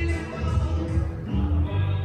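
Music with a steady bass beat, about two beats a second, and sustained melody notes over it.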